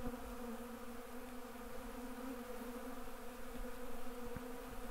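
Honey bees on a lifted brood frame making a steady, even hum.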